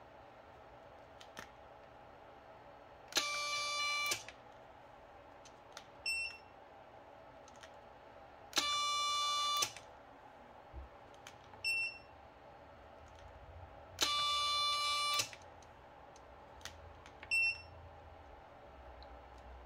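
Futaba A700 digital servo whining three times, about a second each, as it is driven to stall against a digital force gauge in a peak-torque pull, with a click as each pull starts and ends. About two seconds after each pull a short, high electronic beep sounds.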